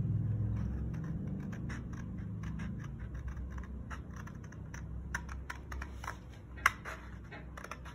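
Scissors snipping through a large sheet of paper: a run of short, irregular cuts with paper rustling, one cut louder than the rest near the end.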